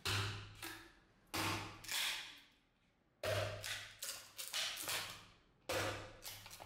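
Restored steel survival knife chopping into a wooden block, a series of sharp chops with short pauses between them: a test of the blade's edge.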